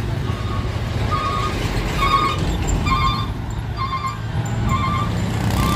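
Vehicle reversing alarm beeping about once a second over a steady low engine rumble.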